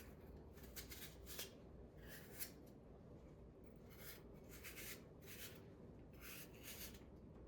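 Faint scraping of a blade peeling the skin off an apple: a series of short strokes, one every half second or so with small pauses between.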